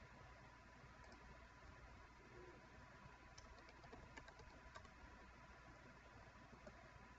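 Faint computer-keyboard typing: a short run of keystrokes about three and a half to five seconds in, entering a smart-card PIN, over a faint steady hiss.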